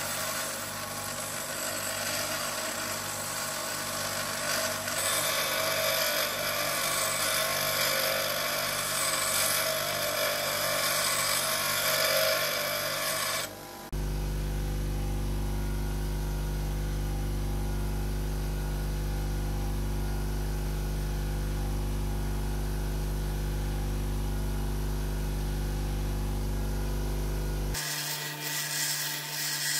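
Bench grinder grinding down a hard-welded steel rocker arm pad, the wheel hissing against the metal over the motor's steady hum. About halfway through the grinding stops suddenly and a steady low hum carries on alone for some fourteen seconds. Grinding starts again near the end.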